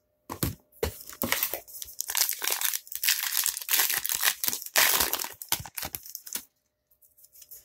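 Baseball card pack wrapper being torn open and crinkled by hand in a string of quick rustles and tears that stop near the end.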